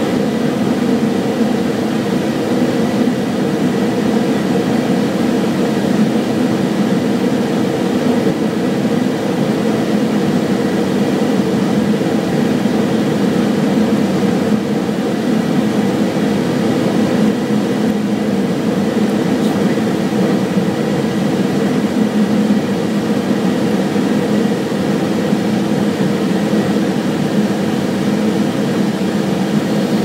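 Cockpit noise of a Cessna Citation Excel twin-turbofan business jet on final approach: its engines and the airflow make an even drone, with a few steady hums and no change in power.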